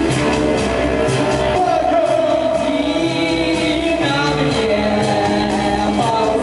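Live band music: a singing voice in long held notes that glide in pitch, over synthesizers and a steady beat.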